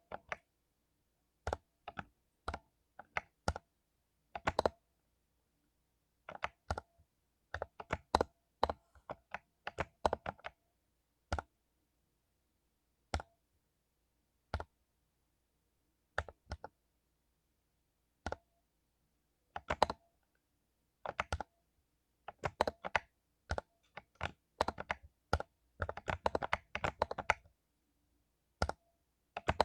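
Mechanical keyboard with lubed Cherry MX Silver linear switches being typed on: scattered single keystrokes and short flurries with pauses between, then a faster, denser run of typing about three-quarters of the way through.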